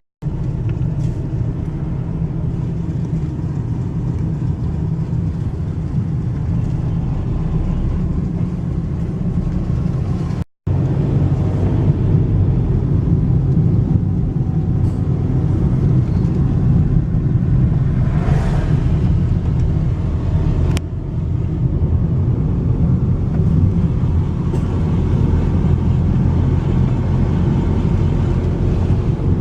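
Steady low rumble of a car on the move, engine and road noise, cut off for an instant about ten seconds in.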